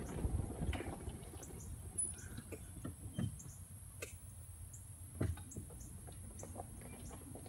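Rural outdoor ambience: a steady high-pitched insect drone with scattered short, high chirps from birds or insects, and small clicks. A low rumble of wind or handling fades out in the first second.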